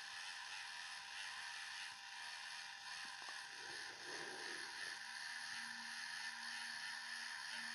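3Doodler Start+ 3D pen's small filament-drive motor whirring faintly and steadily as it pushes out red filament. There is a brief soft lower sound about four seconds in.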